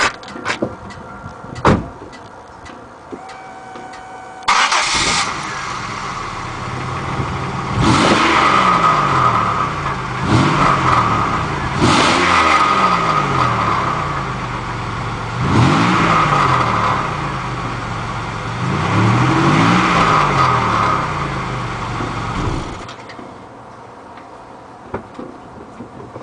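A couple of sharp clicks, then a Buick Century's engine cranks and starts, is revved about five times and settles back between revs, and is switched off near the end. The exhaust is heard with a leak at the rear of the car.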